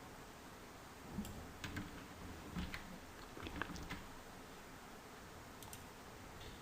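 Faint, scattered clicks from a computer mouse and keyboard: several between about one and four seconds in, and another near the end.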